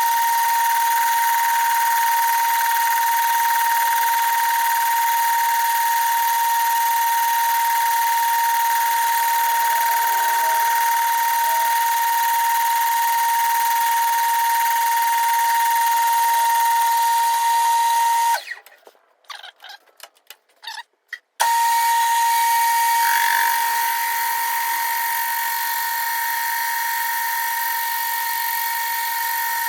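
Metal lathe running at about 300 RPM while facing a cast iron plate, a steady high whine with the cutting noise under it. The sound drops out abruptly for about three seconds past the middle, with a few clicks, then comes back as before.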